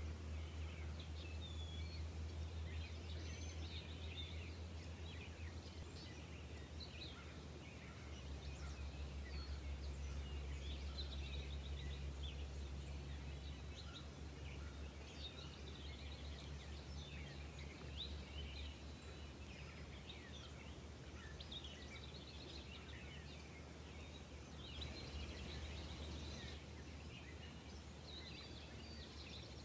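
Small birds chirping and singing in a continuous background chorus of short high notes, with a busier flurry of chirps near the end, over a steady low rumble.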